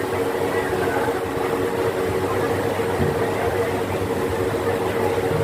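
A steady mechanical hum, like an engine or motor running, with a constant low drone over a background of busy noise.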